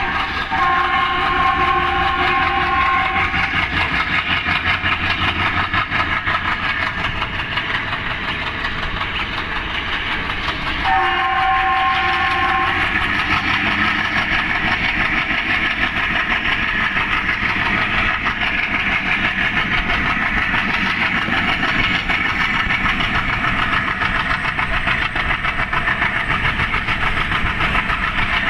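Alco diesel locomotive's engine chugging with a fast, steady pulse. Its multi-tone air horn blows for about three seconds at the start and again for about two seconds around eleven seconds in.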